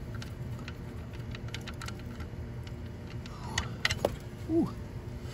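Wrench clicking and knocking on the oil drain plug of a Kubota diesel mower's oil pan as it is loosened, with a short squeak near the end, over a steady low hum.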